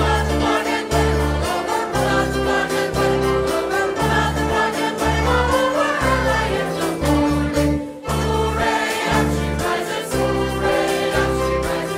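Live band music with singing: violins, viola, guitar, bass, percussion and keyboards playing over a pulsing bass line of short repeated notes, with a brief drop about eight seconds in.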